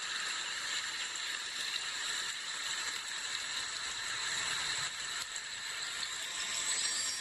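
Dolby Atmos demo audio playing through the Lenovo K6 Power smartphone's rear loudspeaker: a steady hissing, rattling sound-effect track.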